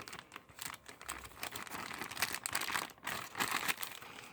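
Plastic packaging bag of a Happy Meal toy being crinkled and pulled open by hand: irregular, rapid crackling rustles.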